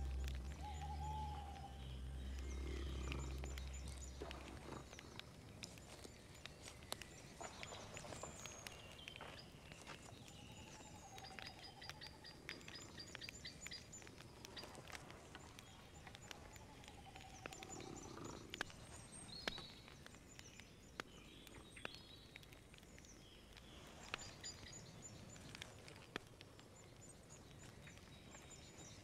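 Faint night-forest ambience: scattered bird calls and high chirps, a few wavering calls, and sparse faint clicks. A low music note fades out in the first few seconds.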